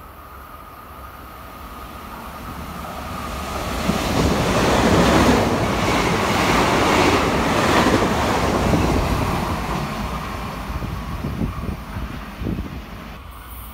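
Taiwan Railway Puyuma Express, a TEMU2000 tilting electric multiple unit, passing close by at speed without stopping. The rushing wheel and air noise swells to its loudest about four to nine seconds in, then fades as the train draws away.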